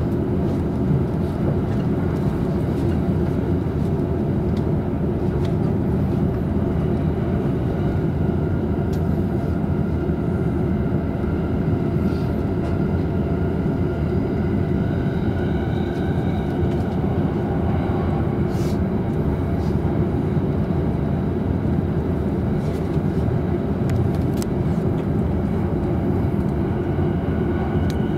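Inside a JR East Tokaido Line double-decker Green car running at speed: a steady, even rumble of the train on the rails. A faint high whine sits over it and rises a little around the middle, and a few sharp clicks come through.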